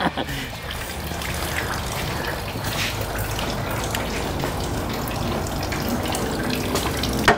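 Engine coolant draining out of the truck, a steady pour of liquid.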